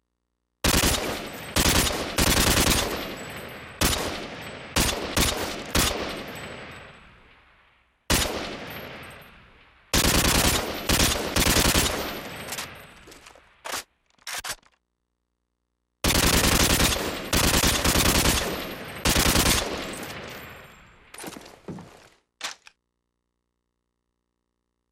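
AK-47 rifle firing on full automatic: short bursts of rapid shots, each dying away in a long echoing tail. They come in three volleys of several bursts each, with brief silences between.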